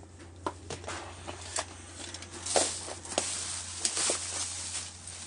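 Household rubbish being handled and sorted: scattered light knocks and clatters with short bursts of rustling, over a steady low hum.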